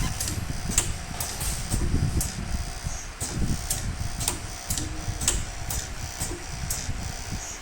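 Air-driven connector socket strength testing machine running its automatic test loop: repeated sharp clicks, roughly two a second, over a low rumble.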